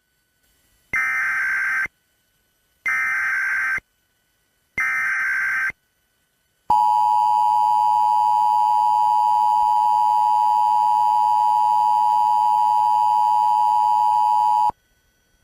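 Emergency Alert System tones: the SAME digital header sent three times as short bursts of rapid warbling data tone, about a second each, then the two-tone attention signal held steadily for about eight seconds and cut off sharply. Together they signal the start of an emergency alert broadcast.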